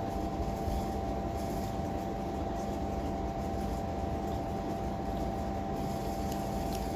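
Steady machine hum with a constant whine, holding an even level throughout.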